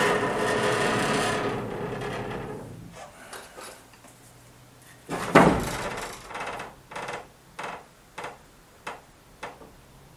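A steady drone with a clear pitch fades out over the first three seconds. Then comes a loud wooden knock about five seconds in, followed by a run of lighter wooden knocks about every half second as boards and a hatchet are handled and tapped.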